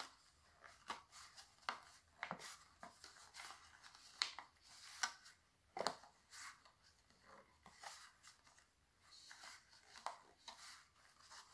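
Faint, scattered rustles and light clicks of hands working stretchy sock-loop fabric bands around a clear plastic cup.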